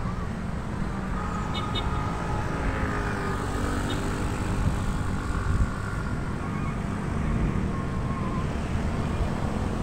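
Steady road-traffic rumble from cars and motorcycles passing, with faint wavering engine tones.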